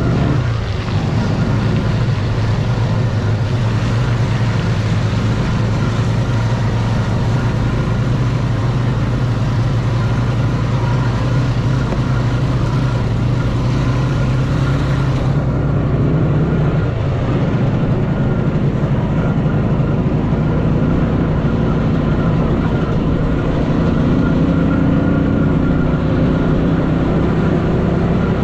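Engine of a homemade three-wheeled all-terrain vehicle running steadily on the move, its note shifting slightly about halfway through.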